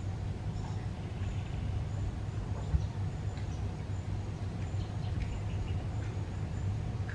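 Steady low rumble of road traffic on the concrete bridge deck overhead, heard from underneath, with a few faint scattered ticks.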